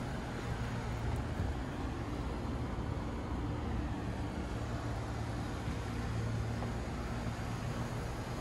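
Steady urban outdoor background: a constant low hum under an even wash of noise, with no distinct events.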